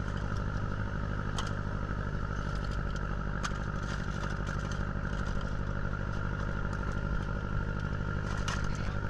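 A boat's engine running steadily at a constant speed, with a few light clicks and some clatter.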